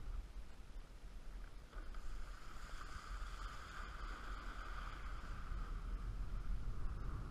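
Kiteboard planing across choppy water: water rushing under the board, with low wind rumble on the camera's microphone and a steady hum over it that dips for the first couple of seconds.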